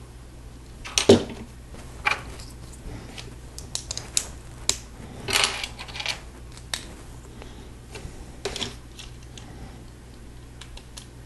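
Plastic Lego pieces clicking and snapping as they are handled and pressed onto a model. The sharpest snap comes about a second in, followed by scattered lighter clicks and a short rustling cluster around the middle.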